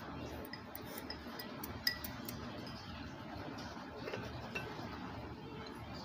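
Ceramic tableware clinking lightly: a run of small clinks in the first couple of seconds, the loudest a little before two seconds in, over a steady low room murmur.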